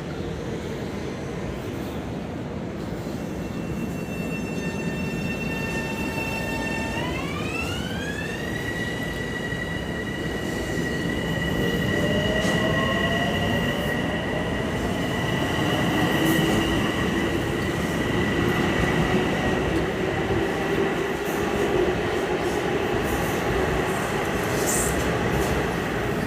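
Long Island Rail Road electric train running, heard from inside the car: a continuous rumble of the wheels on the rails under a high electric whine from the traction equipment. The whine comes in a few seconds in and jumps up in pitch. Lower whines then slowly rise as the train gathers speed.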